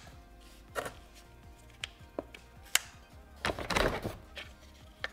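Sharp plastic clicks and knocks from handling nylon spring clamps, about five separate ones, with a longer scraping rustle a little past halfway, over soft background music.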